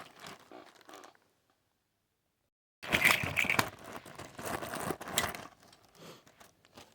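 Plastic bag crinkling and tearing as it is pulled open by hand, in two stretches separated by a gap of dead silence. The second stretch, starting about three seconds in, is the louder.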